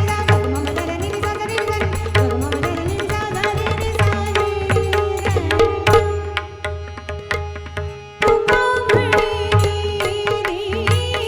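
Indian music with tabla and pakhawaj drumming under a sustained melody line. The music thins out briefly just before eight seconds in, then comes back in loudly.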